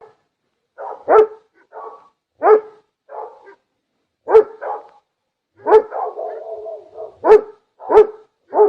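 An animal calling in short, sharp barks, about seven of them at uneven intervals, with a longer drawn-out call a little past the middle.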